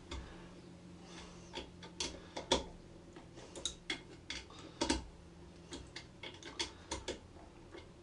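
Irregular small metallic clicks and ticks of a nut driver tightening the brass nuts on an electric motor's terminal block, with a few sharper clicks about two and a half and five seconds in.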